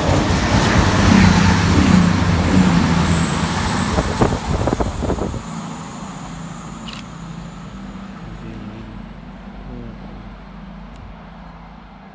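Class 220 Voyager diesel-electric multiple unit passing through the station without stopping. The engine drone and wheel-on-rail rumble are loudest for the first five seconds or so, then fade steadily as the train draws away.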